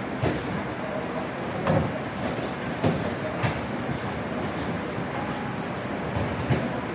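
Boxing sparring: gloved punches and footwork on the ring canvas, heard as about five sharp, irregularly spaced thuds over a steady background noise.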